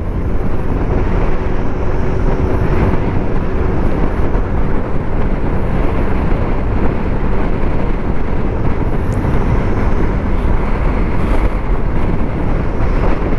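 Steady wind rush over the camera microphone with the engine and tyre noise of a TVS scooter riding at highway speed. A faint steady engine tone shows through in the first few seconds.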